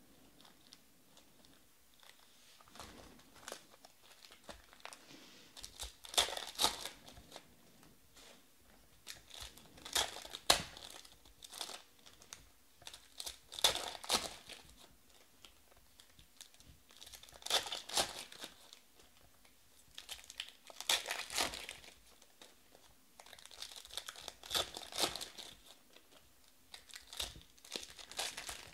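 Foil trading-card pack wrappers (2020 Panini Select Baseball) being torn open and crinkled by hand, one pack after another: a burst of crackling every three to four seconds, with quiet card handling in between.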